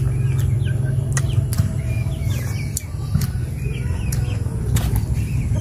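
Small birds chirping in short glides, with scattered sharp clicks and smacks from eating snails, over a steady low rumble.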